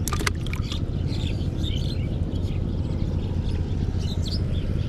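A steady low rumble with small birds chirping faintly now and then, and a quick run of clicks right at the start.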